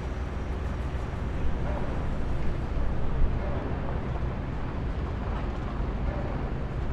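Construction site ambience: a steady low rumble of heavy machinery, with a few brief louder knocks in the first half.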